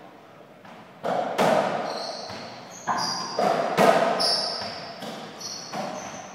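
Softraquet rally: a series of sharp hits of the rubber ball against racquets and the court wall, each one echoing, with short high squeaks between the hits.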